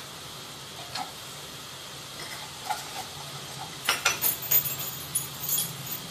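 A metal spoon clinking against a stainless steel mixing bowl while stirring dry wheat flour, with a cluster of sharp clinks about four seconds in, over a faint steady hiss.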